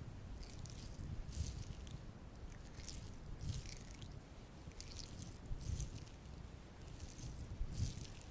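Makeup tools worked close to the microphone: a series of soft, hissy brushing and rustling strokes, irregular at roughly one a second.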